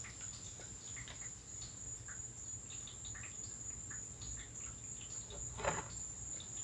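Faint taps and clicks of a wrench on a Honda Monkey 125's oil drain bolt as it is being loosened, with one louder knock about five and a half seconds in. A steady high-pitched tone sits behind it.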